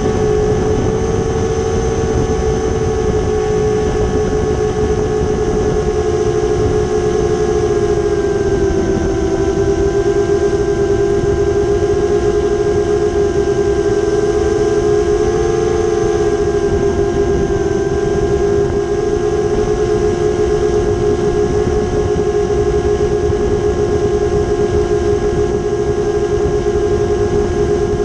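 7-inch FPV quadcopter's brushless motors and propellers buzzing steadily, heard through the onboard GoPro: a strong hum with several higher tones above it, the pitch shifting slightly with throttle. A rough wind rush lies underneath.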